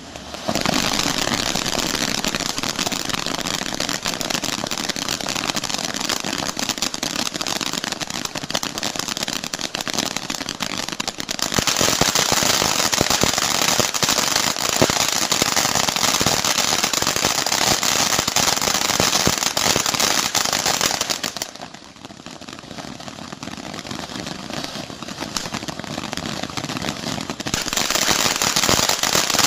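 Peacock Palette fan-shaped fireworks fountain burning: a steady hiss of spraying sparks thick with crackling. It starts just after the beginning, grows louder about a third of the way in, drops away sharply about two-thirds through, then builds again near the end.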